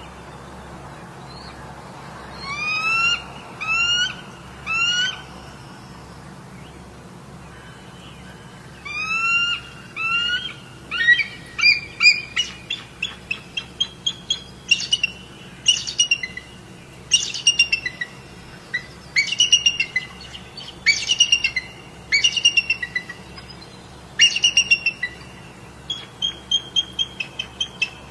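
Bird calling: three rising whistled notes a second apart, then after a pause more rising notes that break into a long, quick run of chirps, with louder calls about every second and a half.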